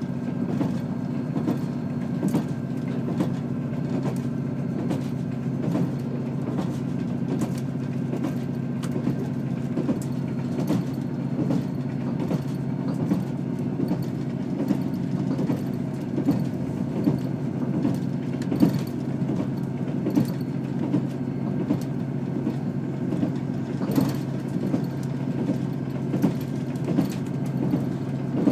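Passenger train heard from inside the carriage: a steady low rumble of the running gear, with frequent irregular clicks and knocks from the wheels on the track.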